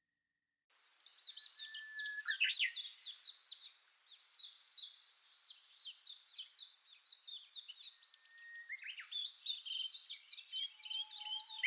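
Songbirds singing, starting about a second in: a dense run of quick, high chirps and trills with a few short held whistles.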